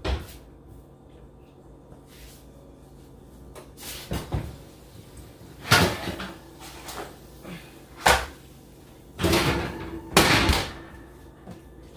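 Kitchen oven door being opened and shut while a baking tray is taken out: a series of knocks and short clatters, the loudest about six, eight and ten seconds in.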